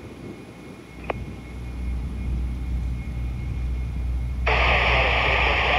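Steady low rumble of jet airliner engines, with a single sharp click about a second in. From about four and a half seconds a loud burst of radio static hiss from the air traffic control receiver comes in with no voice, then cuts off abruptly.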